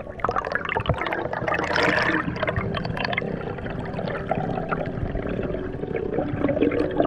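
Underwater water sounds from a breath-hold diver swimming up to the surface: gurgling water noise with many small crackles.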